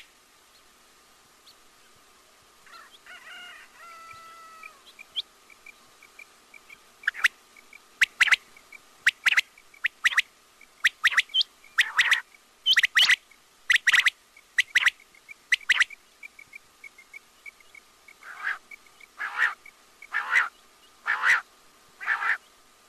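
Quail calling: short, sharp, clipped calls repeated in quick pairs and threes, coming in a run from a few seconds in, over a faint steady tone and a faint rapid ticking.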